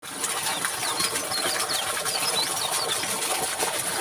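Water running or trickling steadily into a pond, with small birds chirping: a run of short high chirps through the first three seconds.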